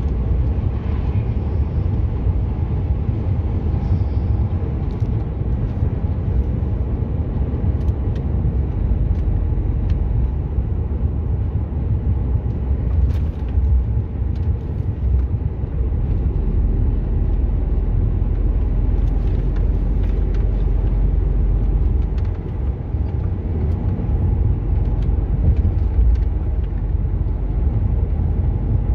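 Lorry in motion heard from inside its cab: a steady low drone of engine and road rumble, with a few faint clicks.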